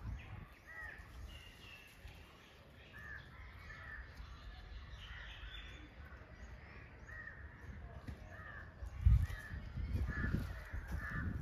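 Many birds calling outdoors, with short calls that repeat and overlap throughout. A brief low rumble or thump about nine seconds in.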